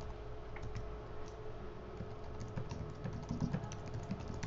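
Typing on a computer keyboard: a run of quick, irregular key clicks, fairly quiet, over a faint steady hum.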